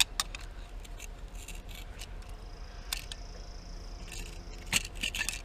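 Scattered sharp clicks and light rattles of electrical wires and a GFCI outlet being handled and pushed into a small metal electrical box, the loudest click near the end.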